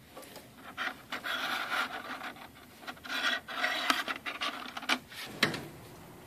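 Stick welding electrodes (6011, 3/32") scraping and clicking against each other as a hand sorts through a box of rods and draws one out. It comes in two scraping spells with a sharp click near the end.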